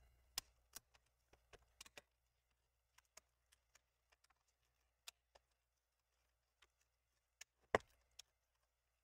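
Faint, scattered clicks and taps of a pry tool working along a laptop's screen bezel as the bezel is pried loose from its adhesive and clips, with one louder click near the end.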